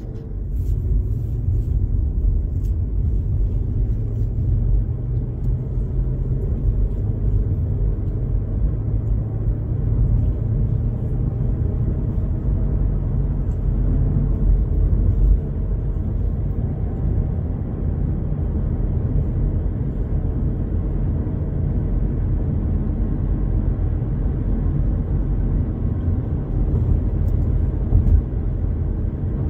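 A car driving along at a steady speed: a steady low rumble of road and engine noise.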